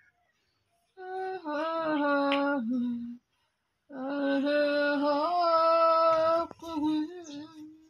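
A woman singing a slow Tagalog love song unaccompanied: two long, drawn-out phrases with a short pause between them, the second longer, her pitch sliding between the held notes.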